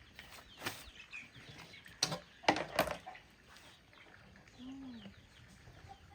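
A few sharp knocks and clatters, loudest about two to three seconds in, then a short drawn-out call from a hen near the end, with faint bird chirps behind.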